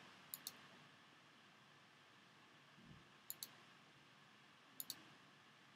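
Computer mouse clicking: three quick double clicks, each a press and release, spread across a few seconds against faint room tone.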